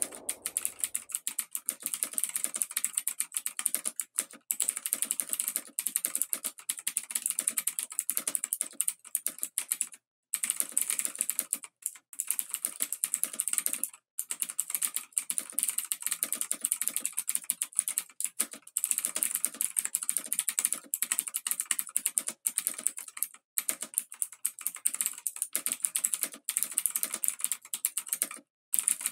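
Experimental noise track of dense, rapid crackling clicks, like fast typing or a ratchet, strongest in the high treble. It cuts abruptly to dead silence for brief moments several times.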